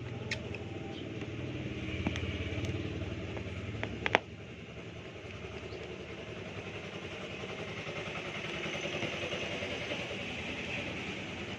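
A low engine hum, like a vehicle running, that fades a little after four seconds in. A few sharp clicks sound over it, the loudest about four seconds in.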